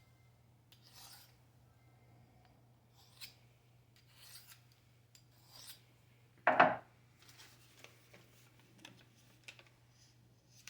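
Knife blade being sharpened: short scraping strokes, roughly one a second, with one much louder, fuller scrape about six and a half seconds in, over a steady low hum.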